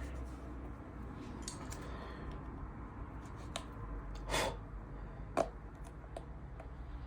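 Small clicks and scrapes of a plastic pry tool working at the edge of an iPhone 11 screen, with one louder scrape about four and a half seconds in and a sharp click a second later, over a low steady hum. The tool is not getting in: the original factory adhesive seal is still holding the screen tight.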